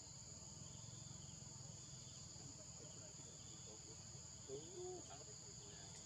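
Faint, steady, high-pitched insect chorus. About four and a half seconds in, a brief faint call glides up and down in pitch.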